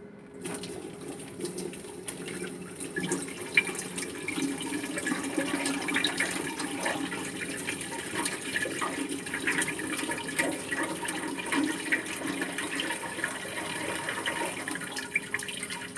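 Boiling water poured steadily from a metal pot into a bathroom sink, splashing into the basin and down the drain. It begins about half a second in. This is the hot-water flush that follows a baking soda and vinegar treatment of a clogged drain.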